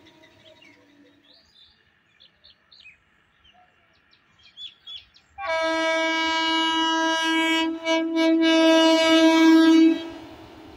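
Electric locomotive's horn sounding one long steady blast of about four and a half seconds as the train approaches, starting about five seconds in. Faint bird chirps come before it.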